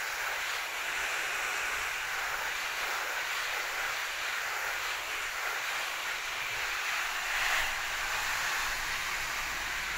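Steady hiss of a fine shower spray of water falling on broad, leafy garden plants.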